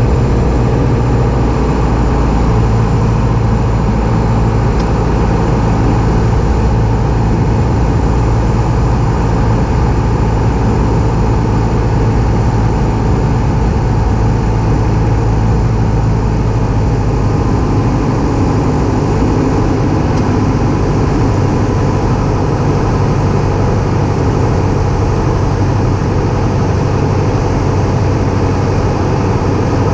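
Light aircraft piston engine and propeller running steadily: a loud, even drone with no change in power.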